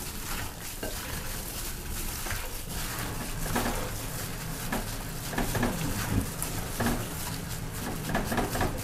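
Irregular knocks, clinks and scraping of a kitchen utensil against a bowl as chicken is worked around in its marinade.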